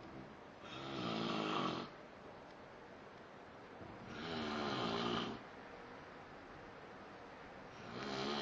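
A sleeping man snoring: three long snores in a steady rhythm, about three and a half seconds apart.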